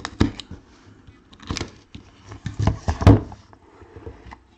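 A cardboard product box being opened and handled on a table: a run of scrapes, rustles and taps, loudest about three seconds in.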